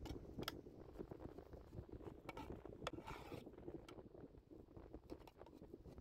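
Metal skimmer-spoon mashing food in a steel pot: faint scattered clicks and a short scrape of the spoon against the pot about three seconds in, over a low steady rumble.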